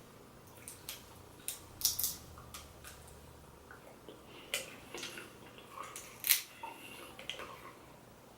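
Cooked seafood shells being cracked and picked apart by hand: a string of irregular sharp clicks and snaps, the loudest a little after six seconds in.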